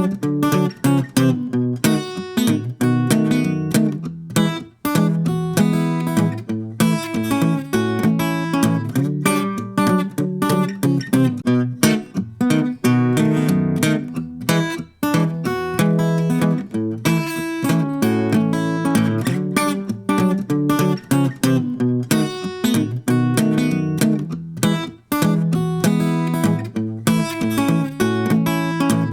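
Acoustic guitar strummed in a steady rhythm of chords, with brief breaks about every ten seconds.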